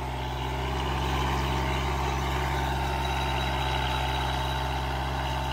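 Tractor diesel engine running steadily under load as it pulls a two-bottom plough through the soil.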